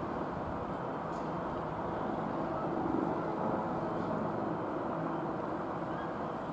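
Military helicopter flying at a distance, its rotor and turbine giving a steady drone that swells slightly about three seconds in.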